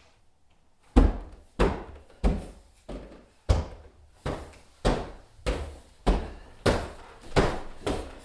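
Footsteps coming up a staircase: a heavy thud about every 0.6 s, starting about a second in.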